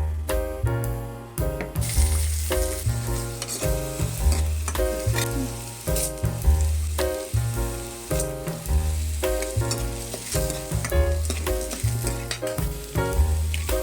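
Food sizzling as it fries in hot oil in a pan, over background music with a steady bass line and repeating melody.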